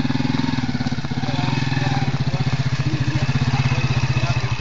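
Motorcycle engine running steadily with a rapid, even putter as the motorbike rail trolley rides along the railway track.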